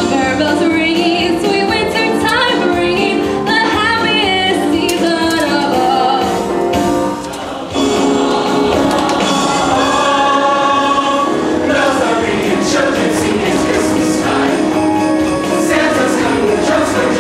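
A choir singing with musical accompaniment, several voices moving together in melodic lines, with a brief drop in level about seven and a half seconds in.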